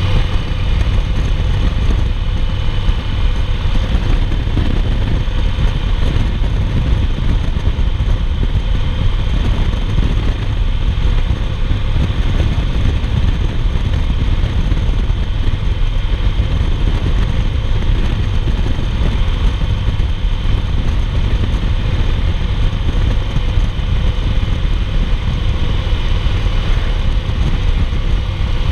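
2008 Yamaha Roadliner's air-cooled V-twin running steadily at highway cruising speed, mixed with steady wind rushing past the bike.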